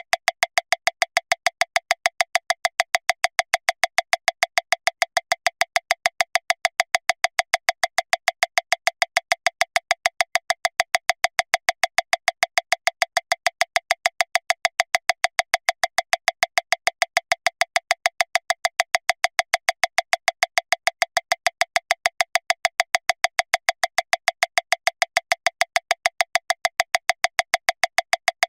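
Metronome clicking steadily at 405 beats per minute, about seven even, sharp clicks a second, all the same loudness with no accented beat.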